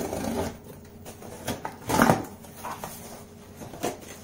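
Packing tape on a cardboard box being slit with a small blade and the flaps pulled open: a run of short scraping and tearing noises from tape and cardboard, loudest in a brief burst about two seconds in.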